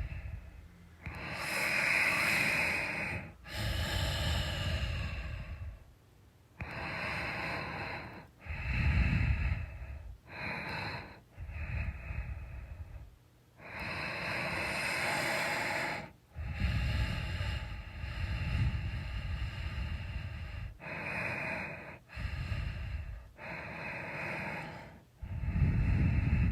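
A person snoring in sleep: a breath about every one to two seconds, some with a low snoring rumble and others mostly a breathy hiss.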